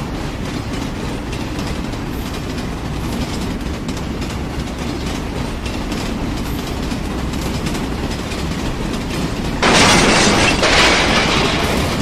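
Steady rumbling and clattering of a heavy vehicle running along, with a louder hiss joining in near the end.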